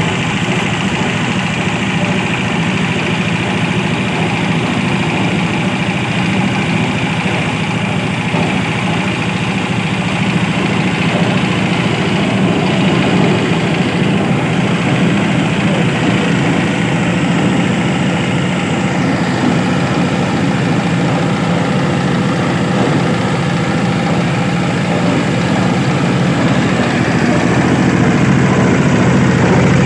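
Engine of a compost-processing machine running steadily at a constant speed, with a deep, even drone.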